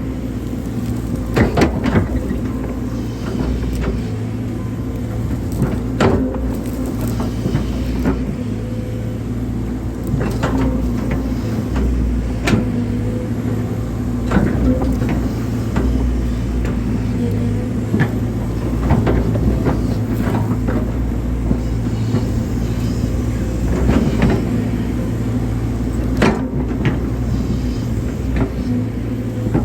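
Hydraulic excavator's diesel engine running steadily at a constant pitch while digging, with scattered short knocks and clatters throughout.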